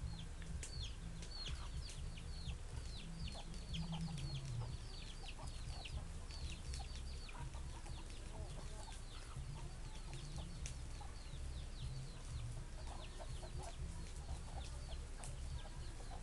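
Young chicks peeping steadily, many short high chirps that fall in pitch, with a few lower clucks from adult chickens in the second half, over a steady low rumble.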